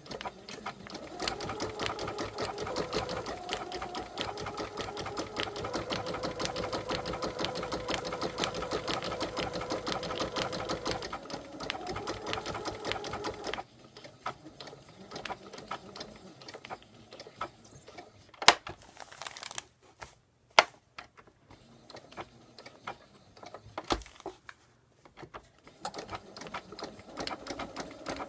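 Sewing machine stitching felt letters onto thin fabric with a fast, even needle rhythm for about thirteen seconds, then stopping abruptly. A pause follows with light handling and a few sharp clicks, and the machine starts stitching again near the end.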